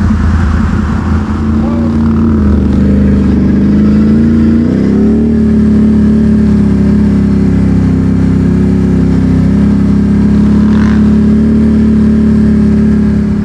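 ATV engine running under way over a rough trail, its pitch dropping about two seconds in and rising again around five seconds in as the throttle comes back on, then holding steady.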